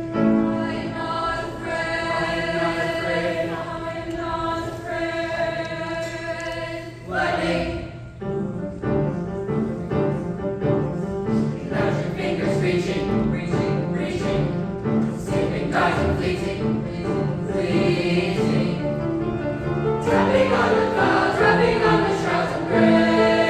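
Mixed-voice choir singing, holding sustained chords at first, then moving into a quicker passage of short, rhythmic repeated notes about seven seconds in.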